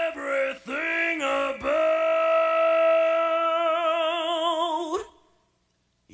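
Singing voice in a song: a few short sung notes, then one long held note whose vibrato grows wider, cut off suddenly about five seconds in.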